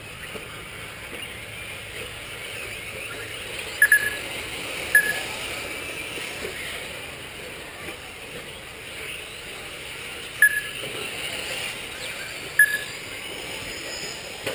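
Four short, sharp electronic beeps, about 4, 5, 10.5 and 12.5 seconds in, typical of a lap-timing system as cars cross the line, over a steady hiss of 4WD short-course RC trucks running on the track.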